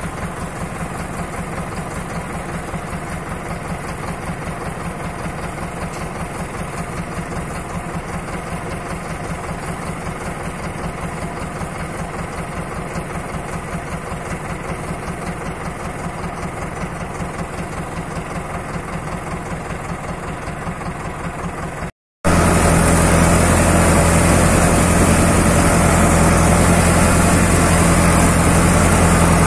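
An engine running steadily with an even pulse. About 22 seconds in it cuts out for a moment and comes back louder and deeper.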